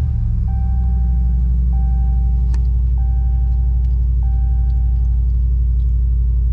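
2020 Ram Rebel's V8 with a K&N cold air intake running steadily just after start-up: a deep, even rumble. Over it, a dashboard warning chime sounds every second or so and stops about five seconds in.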